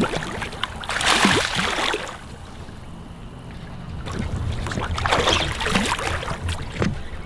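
A hooked paddlefish splashing at the surface beside the boat as it is brought in, in two bursts: about a second in and again around five seconds in.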